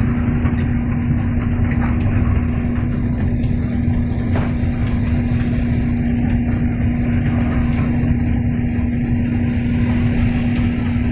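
Hydraulic excavator's diesel engine running steadily while the machine digs, heard from inside the cab: a constant low drone over a dense rumble.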